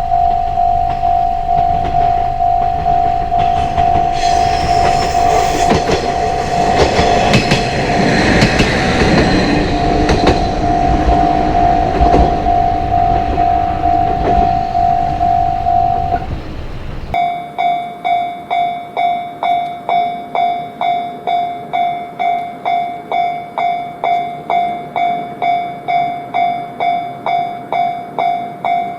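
Japanese level-crossing warning bell ringing its repeated "kan-kan" at about two strikes a second while a train runs through the crossing, its wheels clattering over the rails loudest in the middle. About 17 seconds in the train noise stops abruptly and the crossing bell is left alone, each strike clear and separate.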